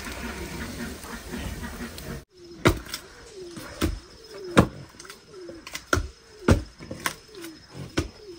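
A wood fire burning under a kettle, then, after an abrupt cut about two seconds in, two long wooden pestles pounding steamed glutinous rice in a stone mortar. The pestles strike in turn, giving a dull thud roughly every two-thirds of a second.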